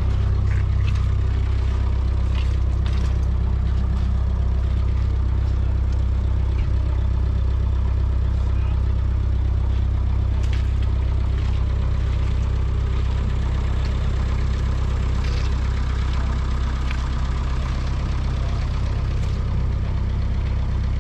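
1935 JI Case Model CC tractor's 4.3-litre four-cylinder petrol engine idling steadily.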